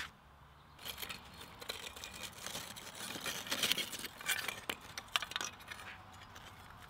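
A run of light clinks and rattles, many short clicks close together, from about a second in until near the end.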